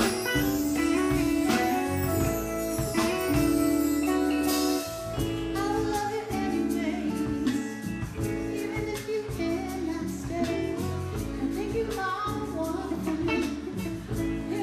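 Live band playing a song: electric guitar over a drum kit with cymbals, and a woman comes in singing lead about five seconds in.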